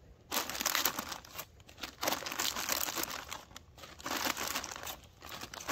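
Wrapping crinkling and crumpling as it is handled, in several irregular bouts with short pauses.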